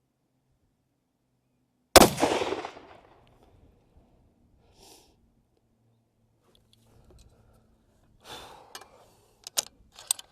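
A single unsuppressed rifle shot from a Sako Finnlight in .270 Winchester, sharp and loud, with a tail that dies away over about a second. Near the end come a short rustle and a few sharp clicks.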